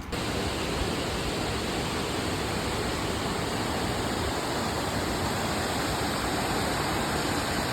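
Wangi Falls waterfall flowing: a steady, even rush of falling water.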